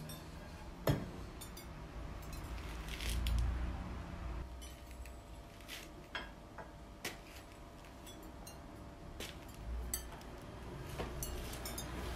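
Kiln shelves and ceramic ware being set into a kiln while it is loaded for a glaze firing: scattered clinks and knocks of ceramic on ceramic, the sharpest about a second in, with a low rumble of handling around three seconds in.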